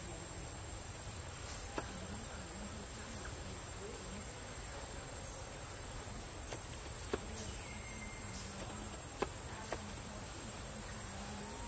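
A steady, high-pitched insect chorus drones without a break, with four sharp clicks scattered through it.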